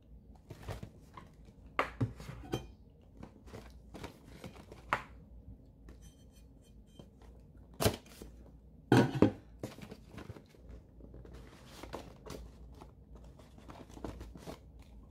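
A cardboard phone box being handled and opened: a cleaver blade slitting the seal sticker, with tearing, scraping and rustling of thin card, and scattered taps and knocks, the sharpest about eight and nine seconds in.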